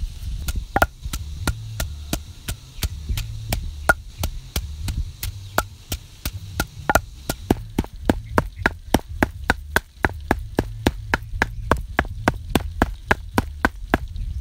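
Large kitchen knife mincing prahok (fermented fish paste) on a round wooden chopping board: quick, even chops about four a second, striking through the paste onto the wood. A low steady rumble runs underneath.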